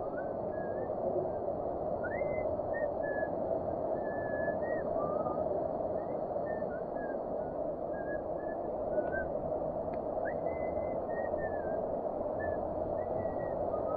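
River water rushing steadily, with short whistled chirps scattered throughout.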